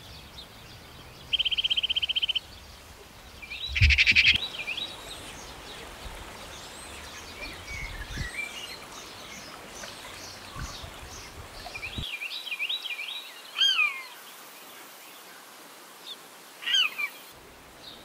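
Several wild birds calling and singing: assorted chirps and whistles, a short rapid buzzy trill about a second in, a louder flurry of calls around four seconds in, and later a few calls that slide down in pitch.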